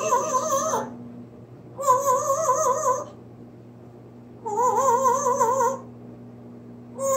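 Pet parrot making warbling calls, each about a second long with a quickly wavering pitch, repeated every couple of seconds with short pauses between. A steady low hum runs underneath.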